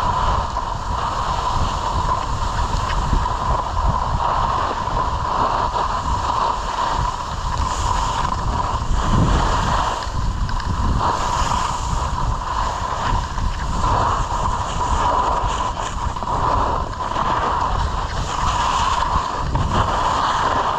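Wind rushing and buffeting over the microphone of a skier moving downhill, mixed with the hiss and scrape of skis sliding on groomed snow: a loud, steady rush that swells and eases a little but never stops.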